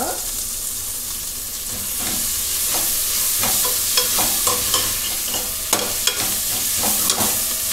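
Sliced onions, green chillies and mint leaves sizzling in oil in a pressure cooker while a flat metal spatula stirs them, with many sharp scrapes and clicks of the spatula against the pot. The sizzle grows a little louder about two seconds in.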